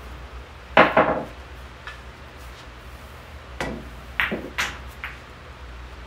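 Pool balls clacking hard together: two sharp clacks about a second in, then four lighter clicks in quick succession near the end, over a steady low fan hum.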